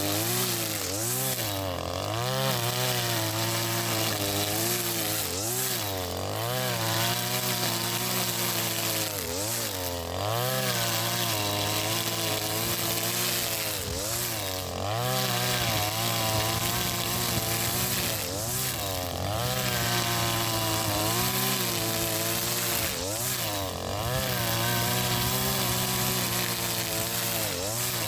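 Husqvarna 542RBS 42cc two-stroke brush cutter running near full throttle, spinning square nylon trimmer line through grass. The engine pitch dips briefly every four or five seconds, then picks back up.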